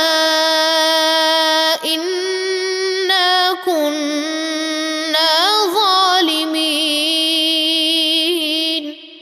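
A man chanting Quran recitation in melodic tajweed style: one voice drawing the words out in long held notes with ornamented turns and short breaks between phrases. The voice stops just before the end, leaving a reverberant tail fading out.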